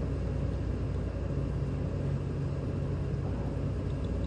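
Steady low rumble of an engine running, with an even drone and no changes in pitch or level.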